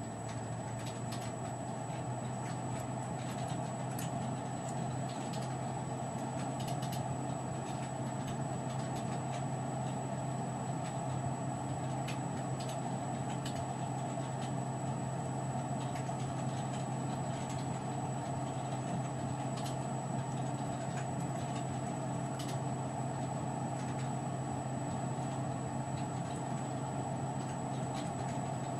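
Steady background hum and hiss with scattered faint clicks.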